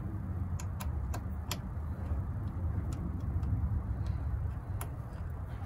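Small, sharp metal clicks from a clamp-on battery terminal connector and cable being handled on a car battery, a few in the first two seconds and one near the end, over a steady low rumble.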